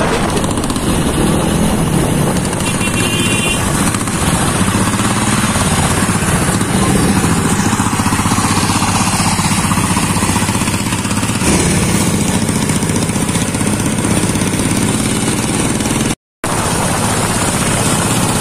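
Diesel engine of a home-built motorcycle running steadily as it is ridden along the road, heard from a following motorcycle with road and wind noise. The sound cuts out for a moment near the end.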